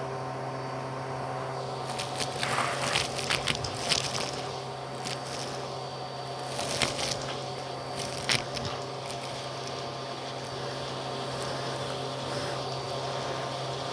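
Bissell PowerLifter vacuum cleaner running with a steady hum while its hose nozzle sucks seashells, plastic beads and sand out of a shag rug. The pieces rattle and crunch up the hose as clusters of sharp clicks, thickest about two to four seconds in and again around seven to eight seconds.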